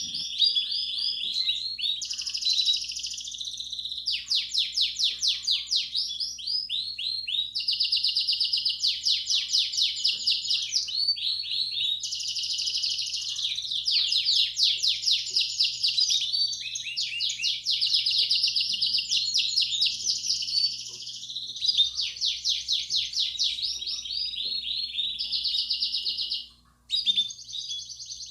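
Belgian canary singing a continuous song of fast trills and rolls, switching to a new phrase every second or two, with a brief break near the end. A faint steady electrical hum runs underneath.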